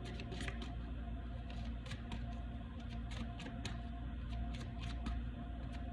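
Soft background music with many irregular light clicks and taps over it.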